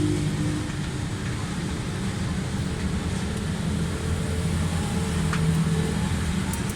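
Steady low rumble of motor traffic and engines running nearby, with no sharp events standing out.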